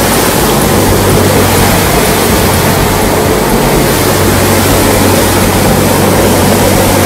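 Boat under way: a steady engine drone under loud, constant rushing of wind and water.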